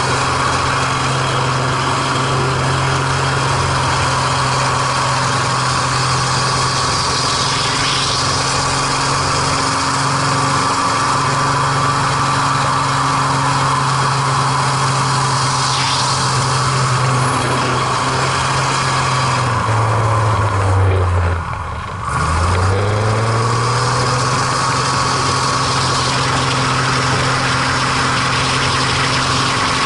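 MX2 aerobatic monoplane's piston engine and propeller running steadily, heard from inside the cockpit with rushing air. About 20 seconds in the engine note drops sharply, dips in loudness, then winds straight back up to full pitch.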